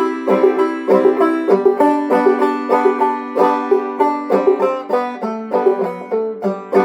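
Five-string banjo played clawhammer style, an instrumental break of rapid plucked notes with ringing drone tones in a steady old-time rhythm.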